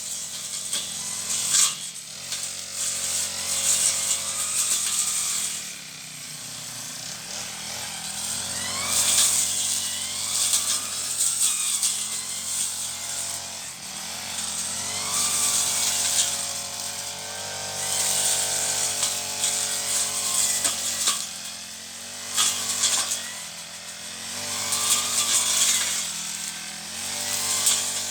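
Brush cutter engine revving up and down repeatedly as it cuts weeds, the cutting head swishing and hissing through the grass at each rise.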